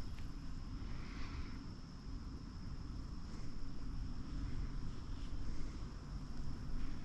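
Outdoor ambience on a river: wind rumbling on the microphone, with a thin steady high-pitched whine over it.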